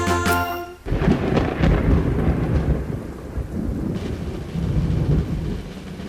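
Thunderstorm: rolling thunder over rain, starting as the music cuts off just under a second in.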